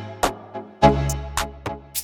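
Instrumental music with a sharp, regular beat over sustained chords.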